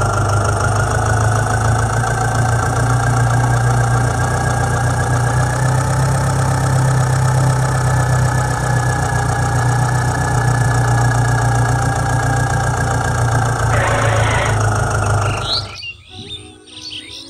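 Tractor engine running steadily, cutting off suddenly near the end. Birds are chirping afterwards.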